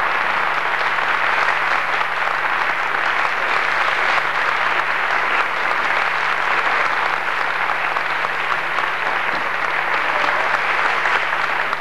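Large audience applauding steadily, with a faint low hum underneath.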